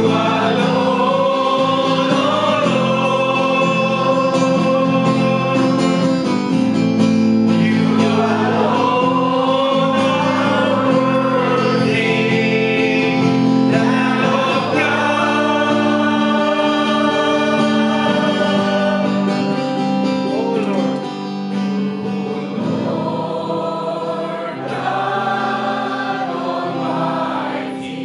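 A congregation singing a praise and worship song with long held notes, accompanied by guitar.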